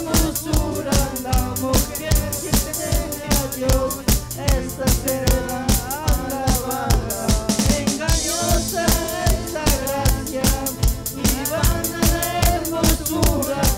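Live band playing a praise song: a drum kit keeps a fast steady beat on bass drum and snare under a keyboard-backed melody, with a cymbal wash near the middle.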